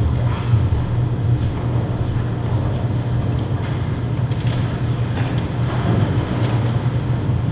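Steady low hum, with a few faint footsteps and light knocks.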